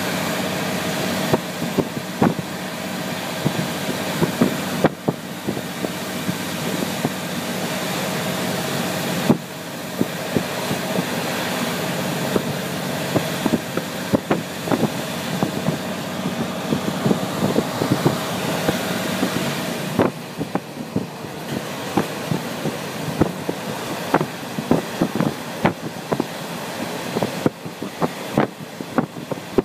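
KiHa 48 diesel railcar running along the line: a steady engine and running noise with a whine, peppered with many sharp clicks and knocks from the wheels on the track. About twenty seconds in the whine stops and the noise drops a little.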